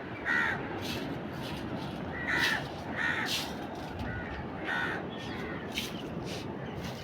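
Birds cawing in short harsh calls, roughly once a second, with a few sharp clicks over a steady background hiss.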